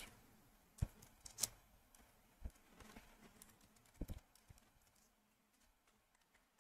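Faint keystrokes on a computer keyboard: a few separate clicks spread out over the first four seconds, stopping about five seconds in.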